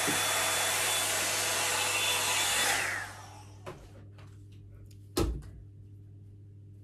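Toni & Guy hot-air volumising brush blowing hot air with a steady rushing noise and a high motor whine, then switched off and winding down about three seconds in. A single thump follows about two seconds later.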